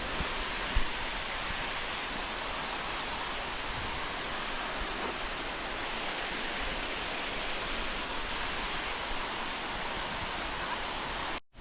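Steady rushing of the Twin Falls waterfall, with one brief low thump about a second in; the sound cuts off abruptly near the end.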